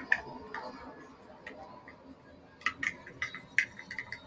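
A stirring utensil clicking and tapping against a small container while thick homemade slime of hand soap and salt is mixed: a few faint ticks at first, then rapid clicking, about five a second, from about two and a half seconds in.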